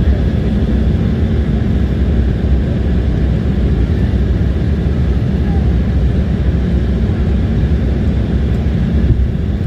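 Airliner cabin noise heard from a window seat: a steady low rumble of engines and airflow.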